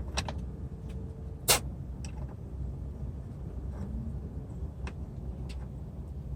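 Scattered small clicks and taps of bolts being handled and fitted to a bumper fog light housing, one sharper click about a second and a half in, over a steady low background rumble.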